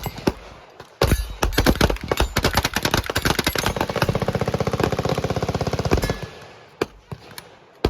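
Automatic gunfire: one long, rapid burst of about five seconds, preceded and followed by a few separate single shots.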